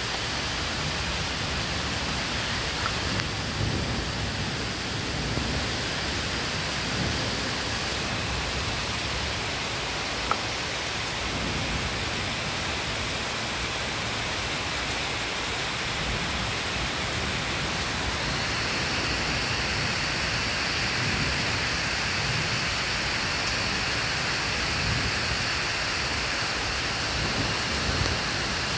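Steady rain falling during a passing thunderstorm, with low thunder rumbling faintly now and then and a single sharp tick about ten seconds in.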